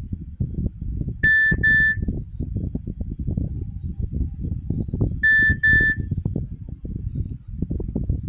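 Nokia Asha 300 mobile phone sounding a double-beep tone: two short high beeps in quick succession, with the pair repeating about four seconds later, over a constant low rumbling background noise.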